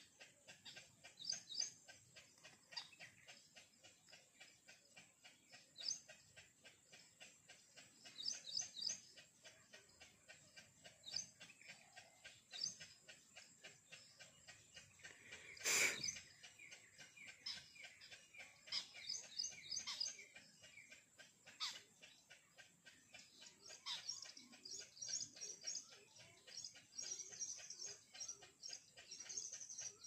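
Birds chirping in short, high bursts, more often towards the end, over a faint, fast, even ticking. A single sharp knock sounds about halfway through.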